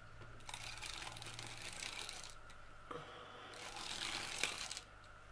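Double-sided gel tape (Crafter's Companion) being pulled off its roll, a crackling, ratchety sound in two stretches: one from about half a second in, the other around four seconds in.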